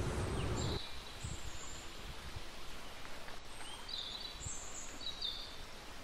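Quiet outdoor ambience with small birds giving several short, high chirps. A low rustling noise stops just under a second in.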